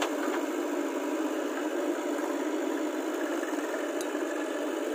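JCB 3DX backhoe loader's diesel engine running steadily while the backhoe arm digs soil.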